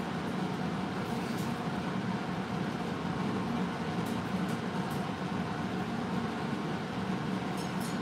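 Steady low hum and hiss of background room noise, with a few faint ticks.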